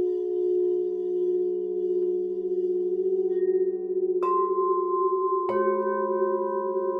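Singing bowls ringing in long, steady, wavering tones. A bowl is struck about four seconds in and another about a second and a half later, each adding a new, higher ringing note.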